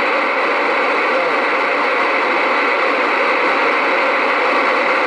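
Steady, loud static hiss from a CB radio receiver between transmissions, cutting off abruptly near the end.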